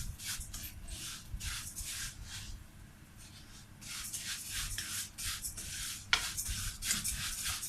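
Rice and vermicelli being stirred and scraped around a pot as they brown in oil, in quick rhythmic strokes of about three a second. The strokes pause briefly about two and a half seconds in, and a sharp knock against the pot comes about six seconds in.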